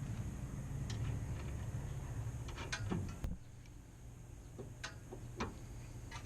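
A few light clicks and knocks of steering parts and tools being handled during a steering rack boot and tie rod end job, over a low steady hum that cuts off about halfway through.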